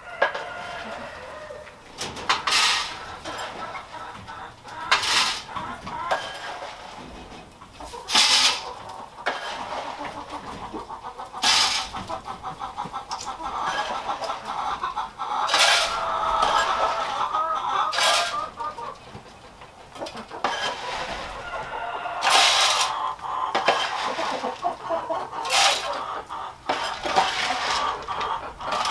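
Chickens clucking steadily, busiest around the middle, with a sharp clatter every few seconds as rabbit feed is handed out.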